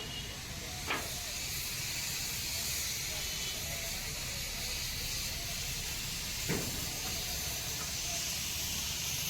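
Steady hissing noise over a low rumble, broken by two short knocks, one about a second in and one after about six and a half seconds.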